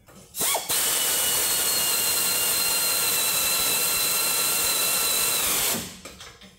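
Pneumatic air ratchet running exhaust bolts down: a short burst, then a steady high whine for about five seconds that sags slightly in pitch just before it stops.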